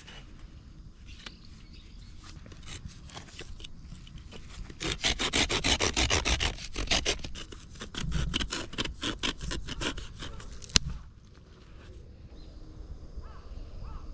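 Dry wood being scraped and rubbed while firewood is gathered: a run of quick, rhythmic scraping strokes, loudest in the middle, then one sharp crack. Crows caw faintly near the end.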